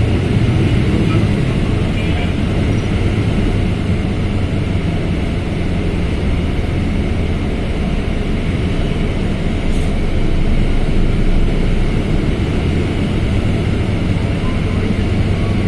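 Mercedes-Benz OF1721L BlueTec 5 bus with its diesel engine running, a steady low drone that swells slightly about ten seconds in.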